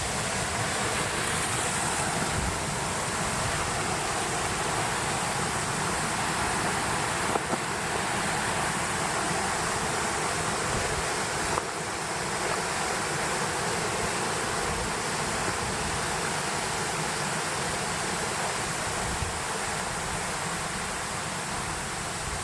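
Steady rushing of flowing water, like a mountain stream or small cascade, unbroken and even.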